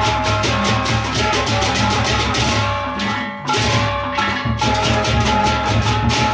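Lombok gendang beleq ensemble playing: many pairs of kenceng hand cymbals clashing together in a rapid, even beat over deep drums and ringing gong tones. About halfway through the cymbals drop out briefly, then come back in.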